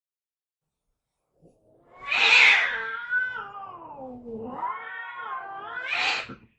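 Angry cat starting about two seconds in with a harsh hiss, then a long drawn-out yowl that slides down in pitch and climbs back up, ending in another hiss near the end.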